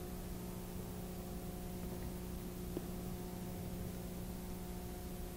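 Steady electrical mains hum with background hiss, and a faint tick a little before the middle.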